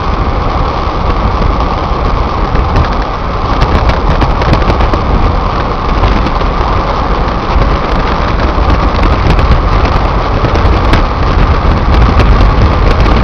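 A car driving: loud, steady road and wind noise with a heavy low rumble, and scattered crackling clicks from about four seconds in.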